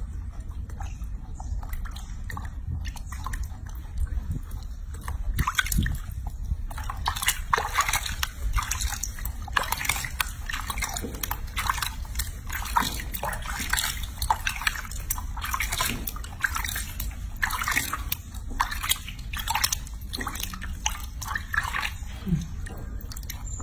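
Water sloshing and dripping in a small basin as hands scoop it over and rub a baby monkey being bathed, with many short splashes coming thick from a few seconds in.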